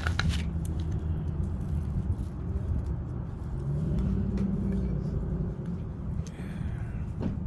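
A car engine's low rumble, its pitch rising a little about four seconds in as it picks up speed.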